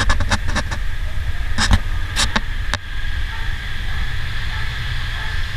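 A steady low mechanical rumble, with several sharp clicks and knocks in the first three seconds.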